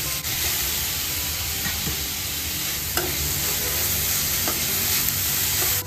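Chopped onion and tomato sizzling steadily in hot coconut oil in a frying pan as they are stirred with a steel spoon, which clicks against the pan a few times.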